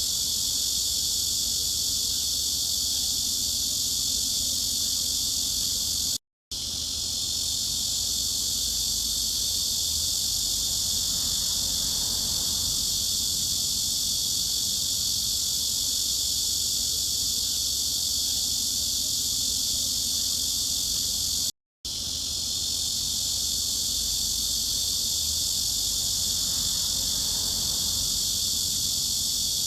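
Dense, continuous cicada buzzing, a steady high hiss-like drone used as a tinnitus masking sound. It cuts out twice, about fifteen seconds apart, and swells back in each time.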